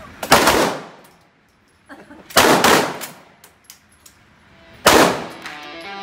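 Gunshots fired in a steel-lined indoor range booth: three loud reports about two and a half seconds apart, each followed by a short ringing tail.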